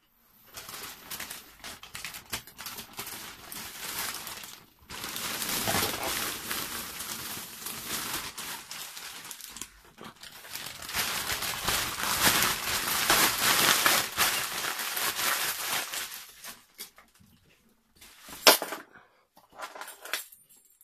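Thin black plastic trash bag rustling and crinkling as a taped parcel is torn open and the bag pulled off its contents, in three long stretches with short pauses between them. A few sharp clicks near the end.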